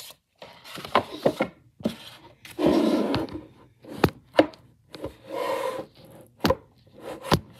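Camera handling noise: irregular knocks, sharp clicks and short rubbing scrapes as the camera is moved and repositioned because it won't stay in place.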